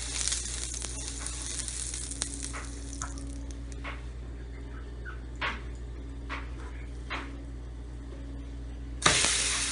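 Butter melting and sizzling on a hot griddle, a soft hiss with scattered crackling pops. About nine seconds in comes a sudden, much louder sizzle, as the ragi roti dough is laid onto the buttered pan.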